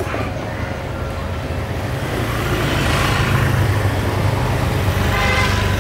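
A motor vehicle's engine running as a low, steady rumble, growing louder over the first few seconds and staying loud to the end.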